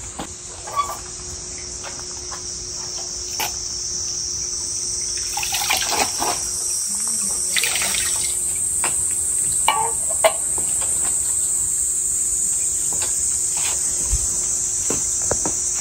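A steady, high-pitched insect chorus that grows louder. Water is dipped and poured from a ladle at a stone hand-washing basin, splashing from about five to eight seconds in and again briefly around ten seconds, among a few light clicks and knocks.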